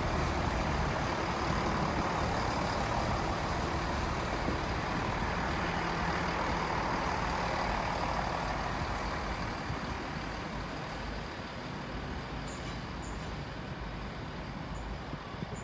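A GWR Turbo diesel multiple unit pulling away along the platform, its diesel engines and wheels on the rails heard as a steady running noise that fades after about ten seconds as the train moves off. Several sharp clicks come in the last few seconds.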